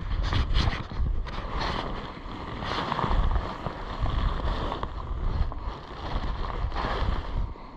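Wind buffeting the microphone outdoors: an uneven low rumble that rises and falls in gusts.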